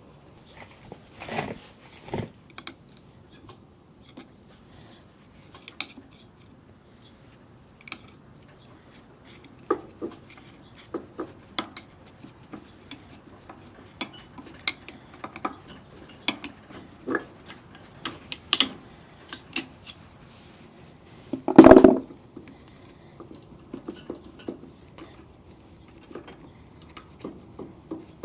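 Scattered metal clinks and taps of tools against a stuck brake drum and axle as the drum is worked off the rear axle. One loud knock with a short metallic ring comes about 22 seconds in.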